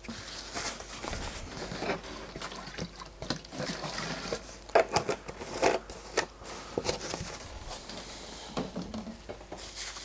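Irregular rubbing, scratching and light clicks as wet silicone is wiped off a smart band's screen with isopropyl alcohol.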